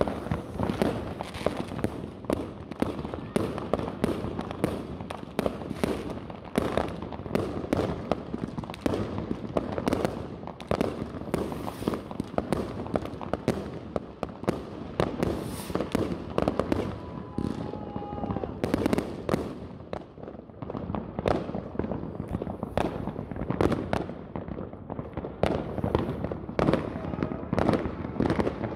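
Fireworks going off in quick succession: a dense, unbroken run of bangs and crackles from many rockets bursting in the air.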